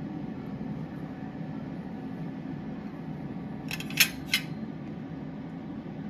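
Steady low hum, with two sharp clinks of cutlery on a plate about four seconds in, a fraction of a second apart.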